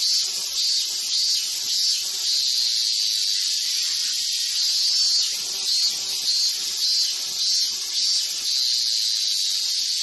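Male cicada singing: a loud, steady, high-pitched buzz with a wavering note that swells and fades about once a second.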